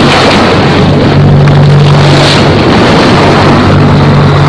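Loud, steady rush of wind buffeting the microphone and water streaming past the hull of a sailing yacht under way. A constant low hum runs beneath it.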